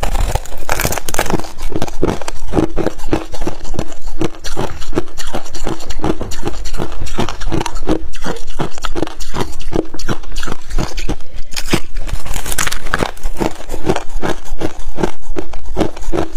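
Crunching of a compacted lump of crushed ice being bitten and chewed, picked up close by a clip-on microphone: rapid crackling crunches several times a second, with louder crunches about a second in and again around twelve seconds.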